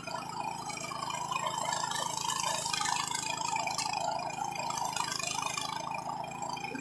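Single-cylinder four-stroke Senci 7.5 hp petrol engine of a push-type rotary grass mower running steadily under load as the mower is pushed through grass, with a slight wavering in its drone.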